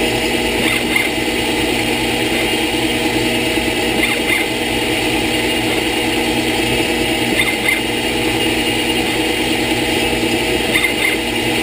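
CNC-converted Wabeco D2000 lathe running a G76 threading cycle, cutting an M8 x 1.25 thread in 6061 aluminium. The spindle and stepper drives give a steady machine hum, with a brief double chirp about every three and a half seconds.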